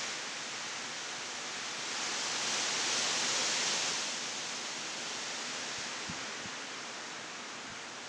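Heavy rain and high wind rushing through trees, a steady hiss that swells in a gust about two seconds in and eases again after about four seconds.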